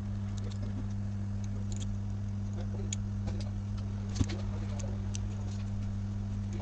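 A steady low electrical hum with scattered small clicks and taps, such as tools handled on a repair bench during phone back-glass work; one sharper tap about four seconds in.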